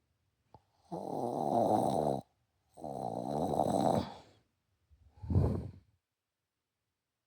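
A woman snoring hard in deep sleep: two long snores of about a second each, then a shorter, deeper one. Snoring she puts down to exhaustion after a double shift.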